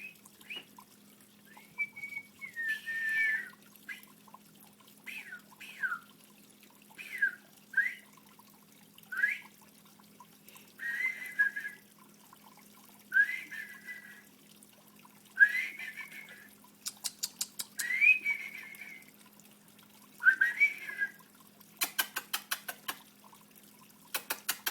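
An unidentified water bird calling over and over: short whistled calls, some sliding down in pitch, one every second or two. Rapid trains of clicks come in several times in the second half, over a faint steady low hum.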